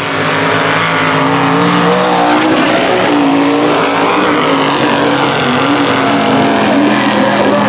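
Mega truck engine running hard through a race pass down a dirt track, a loud continuous drone with wavering pitch.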